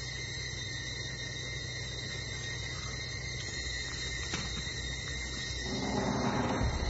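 Night ambience: steady cricket chirring over a low rumble. Near the end a brief louder sound with a pitched low layer comes in, and the rumble thickens.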